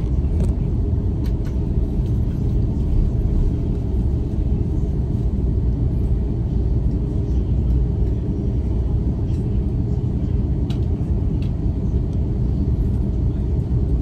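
Steady low rumble inside an Airbus A330's cabin as it taxis: the engines at taxi power and the wheels rolling over the taxiway. A few faint clicks sound over it.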